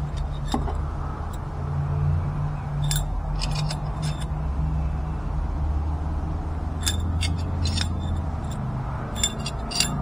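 Scattered metallic clicks and clinks from a double-flaring tool being handled and fitted onto its flaring bar around a brake line, over a steady low hum.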